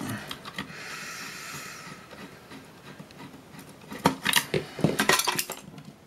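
A screwdriver working a hidden screw out of a metal module case, a faint scraping at first, then a cluster of sharp metal clinks and knocks near the end as the case comes apart.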